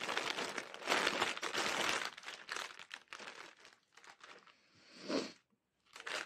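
Clear plastic bag crinkling and crackling as it is pulled open and off skeins of embroidery floss. It is loudest in the first two seconds, thins out, and gives a short crinkle about five seconds in and again at the end.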